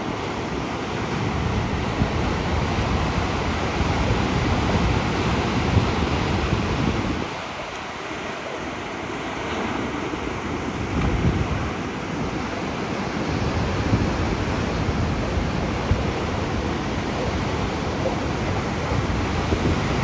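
Ocean surf breaking and washing in, with wind buffeting the microphone. The low rumble drops away for about two seconds a third of the way in, then returns.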